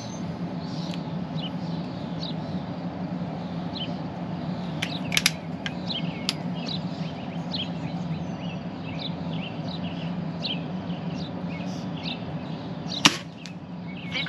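Weihrauch HW97K spring-piston air rifle fired once near the end: one sharp crack, the loudest sound here. A couple of clicks about five seconds in as the rifle is readied, and birds chirping over a steady low hum throughout.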